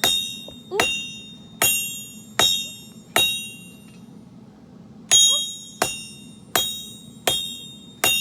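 Hammer blows on steel over an anvil while forging a kunai, each strike ringing with a high metallic tone. There are five evenly paced blows under a second apart, a pause of about two seconds, then five more.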